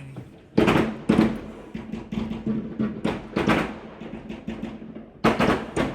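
Consumer fireworks going off: a string of sharp bangs with echoing tails, two loud ones about half a second and a second in, two more around three seconds, smaller pops between, and a close pair near the end.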